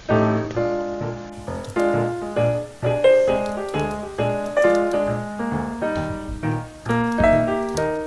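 Background piano music: a continuous run of struck notes, each fading after it is played.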